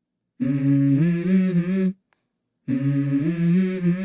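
A hummed vocal phrase of a few held notes stepping up and down in pitch, sung twice, each time broken off into dead silence: the opening of a pop song.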